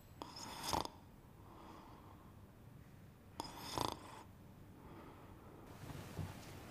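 A man snoring in his sleep: two snores about three seconds apart, each swelling to a peak.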